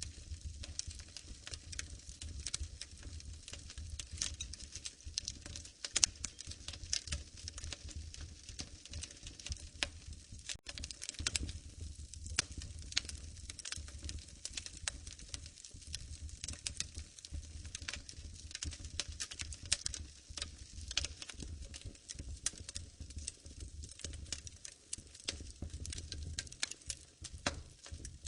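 Wood fire crackling in a fireplace: a dense, irregular run of sharp pops and snaps over a low steady rumble.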